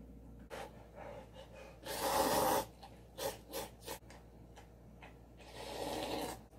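A person slurping cup noodles: one long loud slurp about two seconds in, then three short quick slurps. Near the end comes a longer sip of broth drunk straight from the cup.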